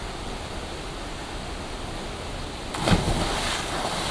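Steady rain hiss, with a sudden loud splash of water about three seconds in that trails off over most of a second.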